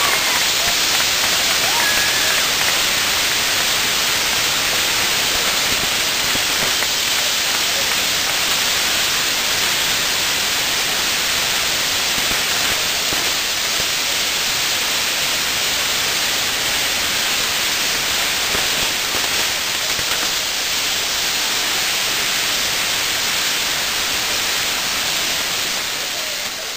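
Spinning ground-firework wheel (a Maltese ġigġifogu), its fountain charges burning together in a steady hissing rush that eases slightly near the end.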